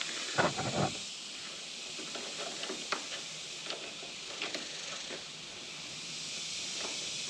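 Light metallic clicks and taps of a 6 mm hex key working a rack mounting bolt, a small cluster about half a second in and single clicks now and then after, over a steady hiss.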